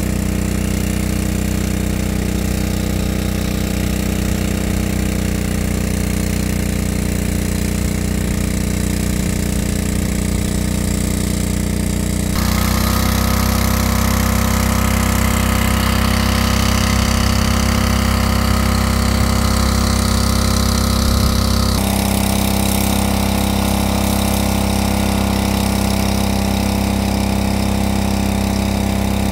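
Small portable gasoline-engine water pump running steadily, pumping water out of a pond. The sound turns louder and brighter for about ten seconds in the middle, then drops back.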